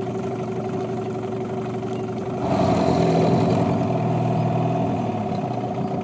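Yamaha 9.9 outboard motor running steadily at low speed, growing louder about two and a half seconds in.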